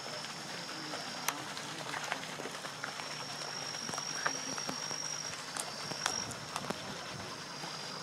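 Outdoor ambience: a steady high-pitched tone that breaks off about a second in, returns, and drops away again near the end, with scattered faint clicks over a soft background hiss.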